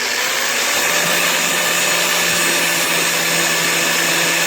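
Black & Decker angle grinder with a cutting wheel running at full speed: a loud, steady whine over a hiss.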